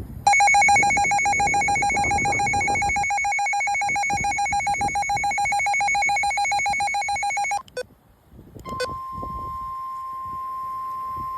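Emergency Alert System attention signal: a loud two-tone alarm tone held for about seven seconds. After a second's break, a single steady warning alarm tone of NOAA Weather Radio begins. Both signal that a spoken weather warning is about to follow.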